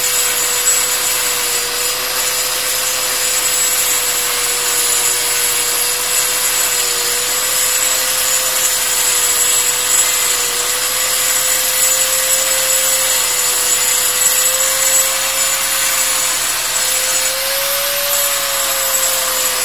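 Handheld angle grinder running continuously as its disc cuts into the face of a flour-mill grinding stone, dressing the stone's grooves. A steady whine wavers slightly in pitch as the load changes, under a gritty hiss of disc on stone.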